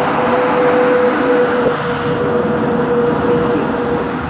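25T passenger coaches of a non-stop through train rushing past a station platform at speed: loud, steady rolling noise with a steady whine running through it, easing a little near the end.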